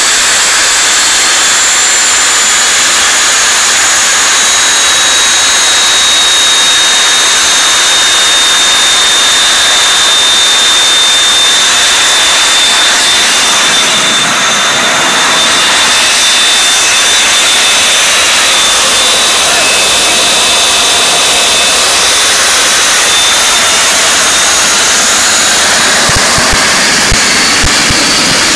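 RU-19A-300 turbojet engine running steadily: a loud jet roar with a high compressor whine. The sound dips and dulls briefly about halfway through.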